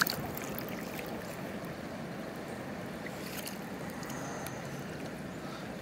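Steady rush of river water flowing around a kayak.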